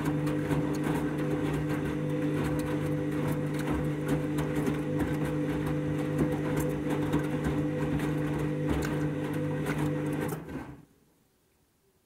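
Candy front-loading washing machine tumbling its drum during a rinse: a steady motor hum with water and laundry sloshing and clicking inside. The motor stops about ten and a half seconds in and the drum comes to rest.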